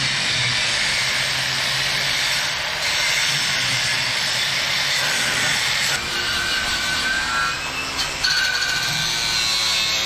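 Angle grinder working on a steel boat hull, a steady loud grinding noise with brief dips about six and eight seconds in.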